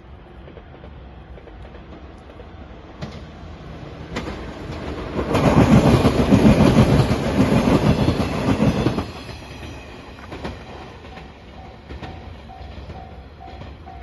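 A JR 115-series electric train passing close by, loud for about four seconds in the middle, its wheels clacking over the rail joints, then fading away. Near the end a level-crossing bell rings faintly in a steady pulse.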